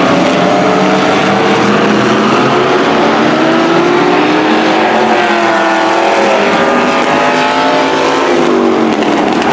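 Demo race cars' engines running hard down the straight, their pitch rising and falling as the drivers accelerate and lift.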